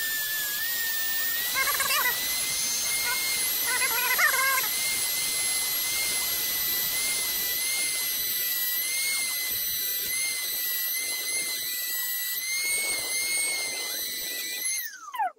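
Handheld rotary tool with a small sanding drum spinning at high speed with a steady high whine while it grinds the filter screen off the tip of a Subaru STI side-feed fuel injector. Two short rough patches, about two and four seconds in, are heard while the drum bites. Near the end the tool is switched off and winds down with a falling pitch.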